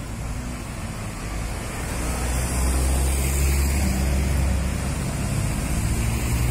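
Low, steady rumble of a motor vehicle engine under street traffic noise, growing louder about two seconds in.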